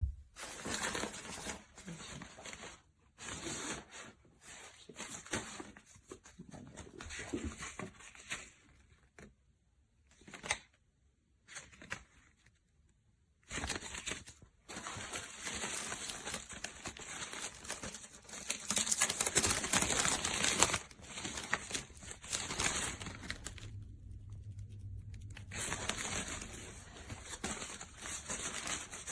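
Fabric of a softbox being handled: rustling, crinkling and ripping in irregular bursts, with a few short pauses.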